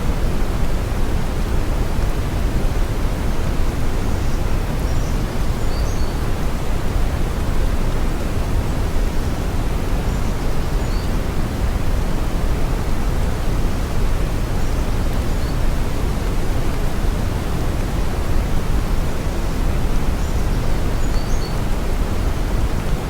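Brown noise: a steady, deep rushing hiss, heaviest in the bass and thinning toward the treble, without change.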